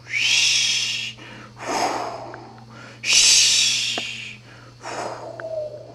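A person breathing heavily close to the microphone: loud hissing breaths about every three seconds with softer ones between, over a steady low hum.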